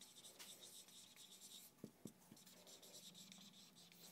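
Faint squeak and scratch of a felt-tip marker writing on a whiteboard, with three soft clicks in quick succession about two seconds in.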